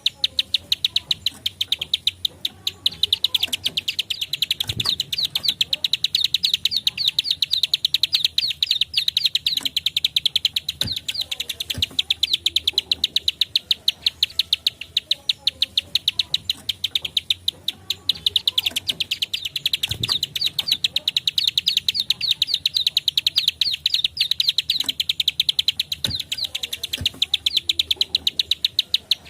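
Plain prinia (ciblek sawah) song: long runs of fast, evenly spaced sharp clicking notes, with a short break a few seconds in and another just past the middle.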